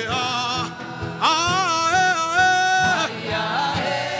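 Worship music: a sustained keyboard chord over a steady soft beat, with a voice singing long held, wavering notes, one phrase ending early and another held for about two seconds in the middle.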